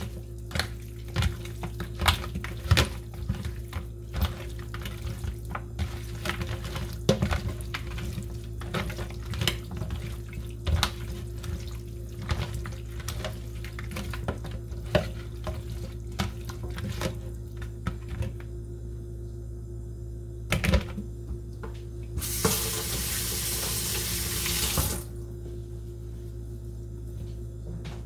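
Raw chicken wings handled and tossed in a plastic colander in a stainless steel sink: a run of short wet slaps and knocks. Near the end a faucet runs for about three seconds, over a steady low hum.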